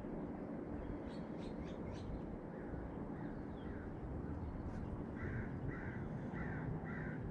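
A bird calling five times in a harsh, evenly spaced series about half a second apart, starting about five seconds in, over steady outdoor background noise.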